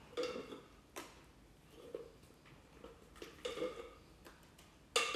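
Scattered light clicks and taps of a glass stand-mixer bowl and utensil as whipped cream is scraped out into a metal baking pan, with a sharper click about a second in and the loudest knock near the end.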